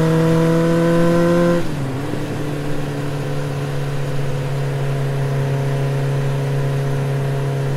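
TVS Apache RTR 180 motorcycle engine running at road speed. Its pitch climbs slowly, drops suddenly about one and a half seconds in, then holds steady.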